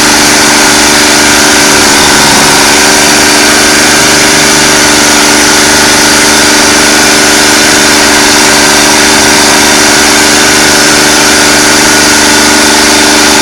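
Stump grinder running loud and steady, its engine held at constant speed while the cutter wheel grinds into an old stump.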